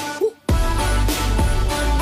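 Background music with a steady beat and deep bass, dropping out briefly just under half a second in.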